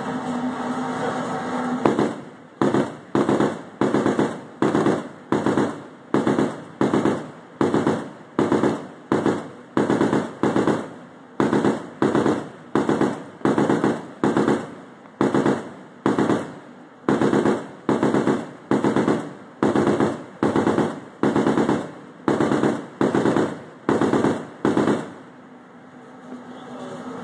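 A ship's deck gun firing a long string of single shots at an even pace, about one and a half shots a second, starting about two seconds in and stopping a couple of seconds before the end, each shot followed by a short echoing tail. A steady hum of ship machinery is heard before and after the firing.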